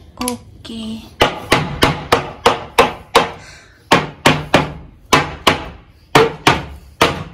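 Repeated knocks on an engineered-wood bed frame joint, struck in quick runs of three to eight at about three a second, each ringing briefly. The joint is being knocked loose after its cam lock has been undone.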